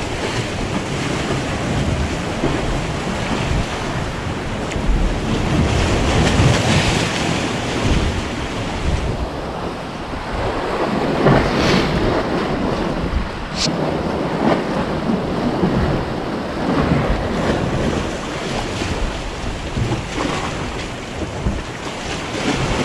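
Sea waves surging and splashing among concrete tetrapod breakwater blocks, a continuous noisy wash that swells and ebbs, with gusty wind buffeting the microphone.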